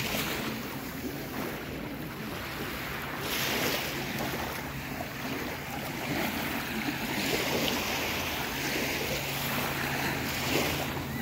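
Small Baltic Sea waves washing onto a sandy beach, the hiss swelling louder twice, with wind rumbling on the microphone.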